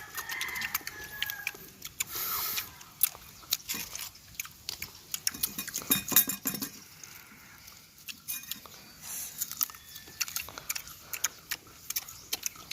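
Crunching and chewing of firm green mango, close to the microphone: a steady scatter of sharp crackly clicks.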